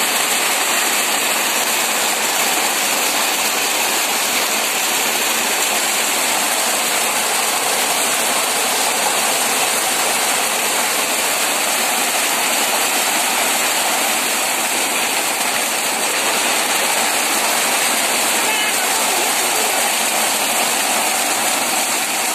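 Heavy rain pouring down onto a flooded, waterlogged yard and splashing into the standing water: a loud, steady hiss of downpour that does not let up.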